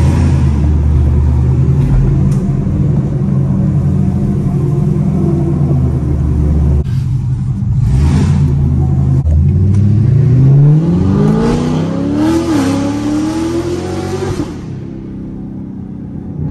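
C7 Corvette's V8 running at low revs, heard from inside the cabin. About ten seconds in it revs up hard under acceleration, the pitch climbing steeply with one brief dip, then it backs off near the end.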